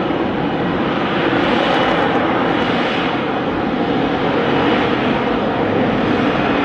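Loud, steady jet noise from an F-35B's Pratt & Whitney F135 engine, holding even without rising or falling.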